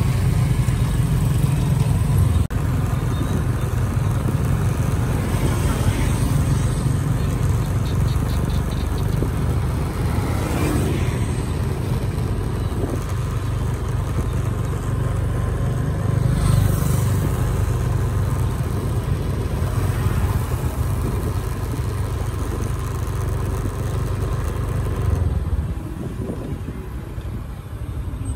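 Steady outdoor road-traffic noise of cars and motorbikes, with a few vehicles passing close.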